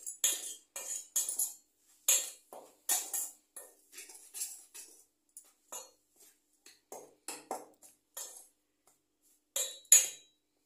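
Bangles on a wrist jingling and clinking against a steel bowl in short, irregular bursts as a hand mixes dry semolina and flour in it, the loudest clink near the end.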